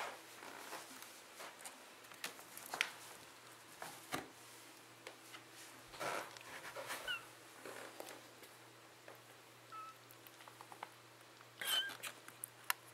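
Kittens about four weeks old stirring on a towel in a cardboard box: soft scattered rustles and small clicks, with a few brief high squeaks about seven seconds in and again near the end.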